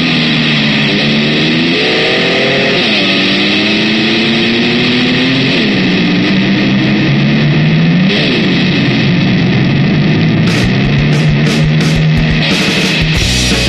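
Live rock band: distorted electric guitar played with a slide, its pitch gliding up and down like a motor scooter revving, over a dense wash of guitar noise. Drum and cymbal hits come in about ten seconds in.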